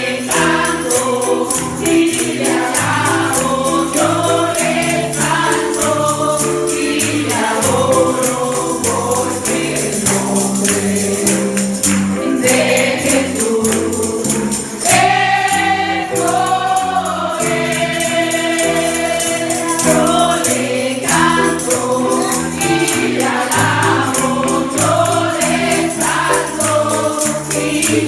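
Gospel-style worship music: voices singing together over instrumental backing, with a tambourine keeping a steady beat.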